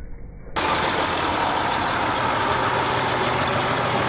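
After a brief quiet, muffled stretch, the steady noise of a train rolling slowly along the rails starts abruptly about half a second in and holds at an even level.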